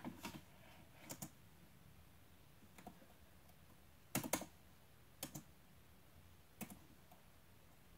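Scattered key presses on a computer keyboard: single taps and short quick clusters of clicks, a second or more apart, fairly faint.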